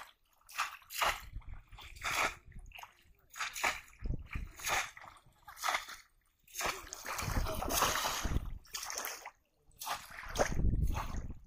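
Bamboo polo fish traps plunged again and again into shallow water, with people wading: a run of separate splashes about once a second, then longer spells of sloshing about seven seconds in and again near the end.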